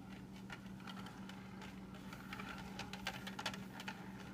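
Faint steady low hum with scattered light clicks and ticks, busiest in the middle.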